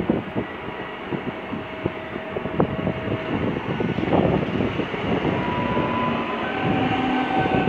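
Pesa Dart electric multiple unit pulling out of the platform and rolling past, with a steady rumble of wheels on rail and scattered clicks. Some faint whining tones come in over the second half.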